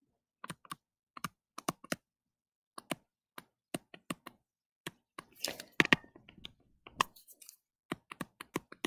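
A digital pen tapping and clicking on a touchscreen as a word is handwritten. The taps are irregular, with a short scratchy rustle about five and a half seconds in.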